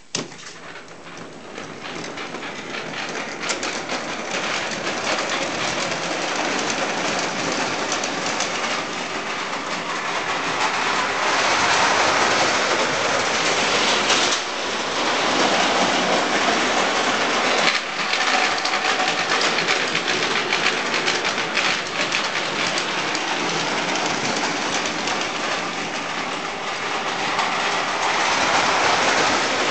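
Hornby O gauge clockwork No. 2 Special tank locomotive running on tinplate track, with its wound-up clockwork motor whirring and its metal wheels and train rattling over the rails in a continuous clatter. It comes in abruptly and grows louder over the first dozen seconds, then runs on steadily with a couple of brief dips.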